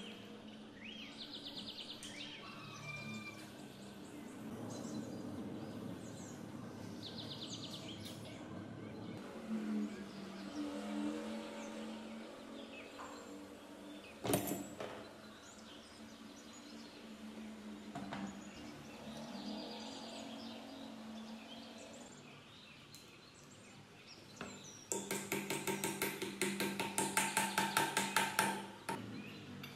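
Workshop handling of pump parts on a metal bench, with birds chirping in trills and a single sharp knock midway. Near the end comes a fast run of ringing metal-on-metal taps, about four or five a second for some three seconds, at the rear fan end of the pump's electric motor during reassembly.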